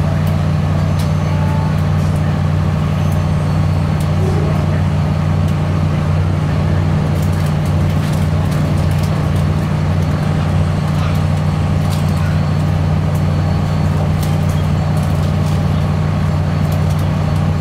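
Cabin noise of a CAF Class 3000 diesel multiple unit under way: a steady low drone, much of it from the air-conditioning unit, with faint scattered clicks.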